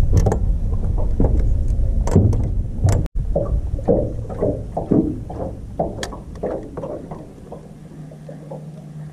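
Wind rumbling on the microphone with scattered knocks in the boat, then, after a cut about three seconds in, irregular slaps of small waves against the boat's hull that fade off. A faint steady low hum comes in near the end.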